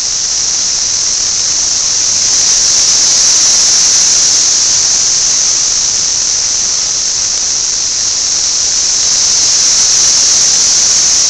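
Loud, steady chorus of periodical (17-year) cicadas: one continuous high-pitched drone.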